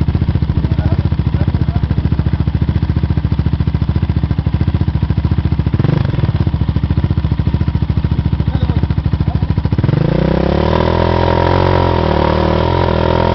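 Yamaha Raptor 700 ATV's single-cylinder four-stroke engine idling with an even pulsing beat, blipped briefly about halfway. Near the end it is revved up and held high with a wavering pitch as the rear tyres are spun in a burnout.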